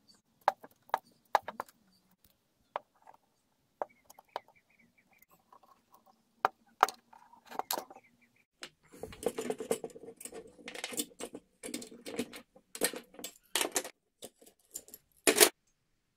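Scattered clicks and knocks of handle scales and metal parts being handled on a bench, then a few seconds of metal clinking and rattling as steel C-clamps are set and their screws and sliding T-handles worked, ending with one sharp click.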